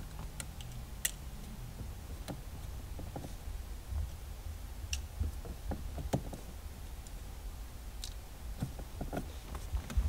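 Scattered faint clicks and ticks of a plastic gear-shifter housing and tweezers being handled as its ribbon cable is fed through.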